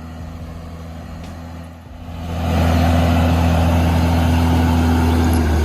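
Diesel engine of a heavy machine running steadily, then rising in load about two seconds in and holding a loud, steady drone.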